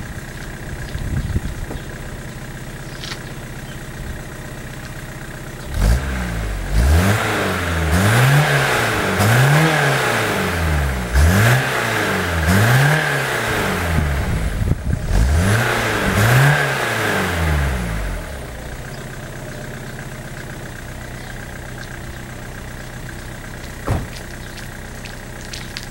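VW Golf 3's 1.9 TD AAZ four-cylinder turbodiesel, fitted with a GTD turbo and an adjusted injection pump, idling, then revved up and let drop again and again for about twelve seconds from about six seconds in, before settling back to idle.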